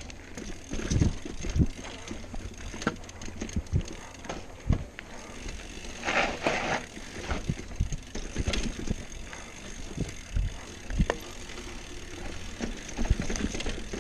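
Hardtail mountain bike jolting over rocky singletrack: irregular sharp knocks and clunks as the tyres, frame and chain hit rocks, over a steady rumble of tyres rolling on dirt.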